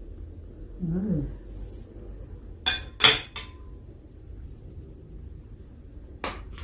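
Tableware clinks during a meal: two or three sharp clicks about three seconds in, one leaving a brief ring, and another click near the end. A short low hum of the eater's voice comes about a second in.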